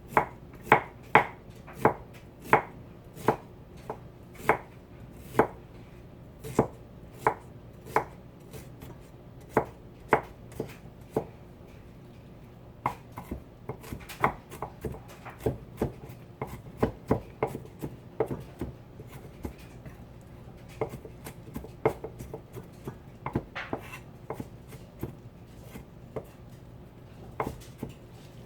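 Knife chopping on a cutting board: sharp, uneven strokes about one or two a second, with a short pause about halfway through, over a faint steady hum.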